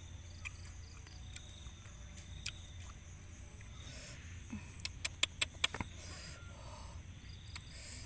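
Insects chirring steadily in the background. About five seconds in comes a quick run of four or five sharp clicks and crackles as the charred grilled fish is pulled apart by hand.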